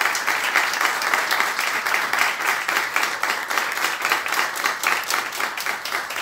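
A small group of people applauding, a steady patter of hand claps.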